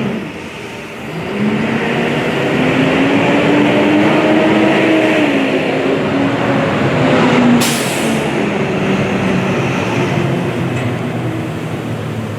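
A large honeybee swarm buzzing loudly up close while handfuls of bees are pulled from the cluster, a wavering hum that rises in pitch and sinks back. A brief sharp crackle about seven and a half seconds in.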